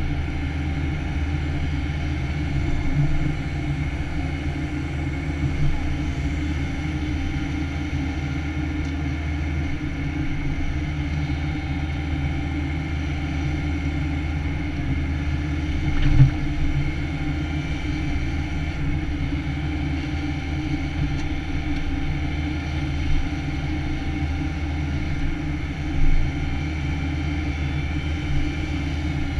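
Takeuchi TB175 excavator's diesel engine and hydraulics running steadily under load, heard from inside the cab, with a few short clunks as the tiltrotator bucket works the topsoil. The loudest clunks come about halfway through and again near the end.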